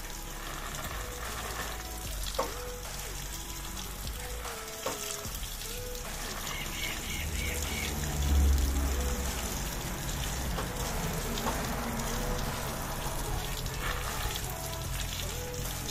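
A steady stream of water poured onto loose soil and plastic mesh sacks, splashing and hissing as a freshly sown seedbed is watered. Background music with a melody and bass plays underneath.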